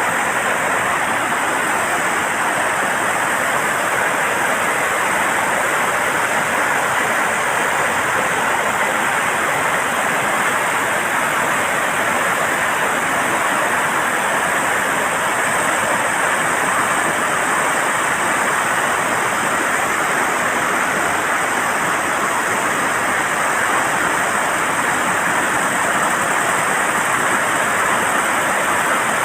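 Steady rush of water pouring through a dam's opened floodgates, released under a flood alert.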